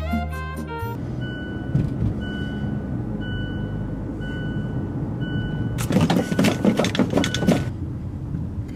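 Car's seat-belt warning chime, a beep about half a second long repeating roughly once a second, over the low rumble of the engine and road in the cabin. Near the end a loud, rough burst of noise lasting about two seconds drowns it out.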